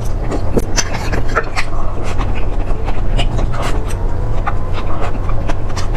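Close-miked chewing and eating: irregular wet clicks, smacks and crunches from a mouth working food, over a steady low hum.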